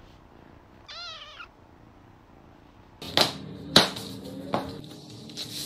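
A ginger kitten gives one short, wavering meow about a second in. About three seconds in, a few sharp slaps follow, the loudest a little later, as a yoga mat is flipped out onto a wooden floor.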